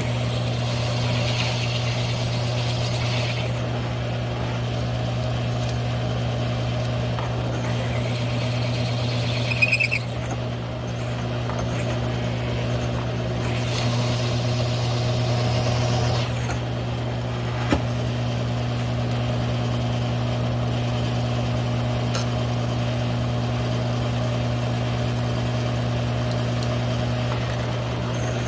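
Grizzly G1007 mill-drill running steadily while a one-inch hole saw cuts through 3/8-inch steel plate: a constant motor hum, with a hissing, grinding cut noise that swells and fades three times. There is a short squeal and a sharp click about ten seconds in, and another click later.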